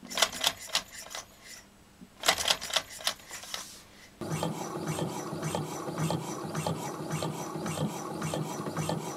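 Small half-rhombic-drive Stirling engine: a few irregular clicks and knocks as it is turned over by hand, then from about four seconds in it runs with a steady, even mechanical clatter from its linkage.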